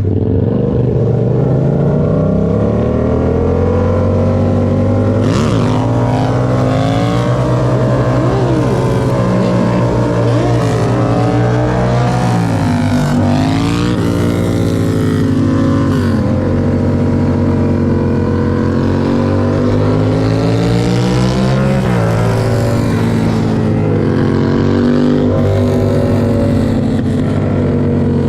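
Yamaha MT-07's parallel-twin engine through an aftermarket Toce exhaust, riding under load: the pitch climbs as it accelerates, dips sharply on shifts and when the throttle closes, and climbs again several times. Wind noise runs under it.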